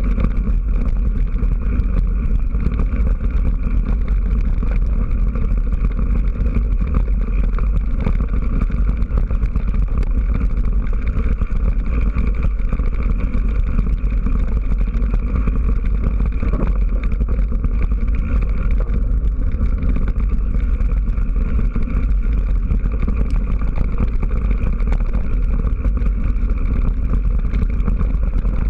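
Steady low rumble of a mountain bike being ridden over a rough dirt and gravel trail, picked up by a camera riding on the bike or rider.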